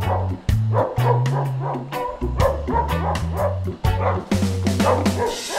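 Background music with a steady beat and a deep bass line, with a dog barking repeatedly over it.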